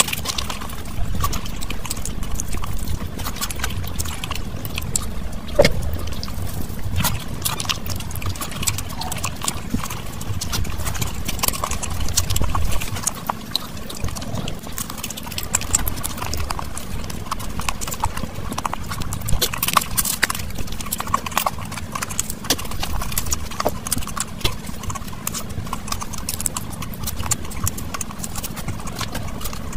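Close-miked eating sounds: a rapid, irregular run of wet chewing clicks and lip smacks, with fingers mixing rice and curry on the plate.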